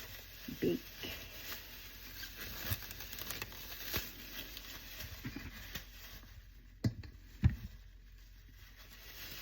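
Scattered small knocks, scrapes and rustles of things being handled, with two sharper thumps about seven seconds in.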